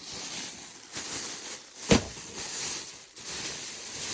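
Rustling of clothes and bags being handled and pulled out of a storage bin, with one sharp knock about two seconds in.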